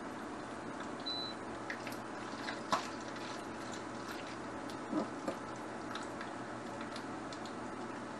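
Pot of pasta water boiling steadily on an induction hob, with light scattered ticks. A sharp knock comes about a third of the way in, and two softer knocks follow near the middle.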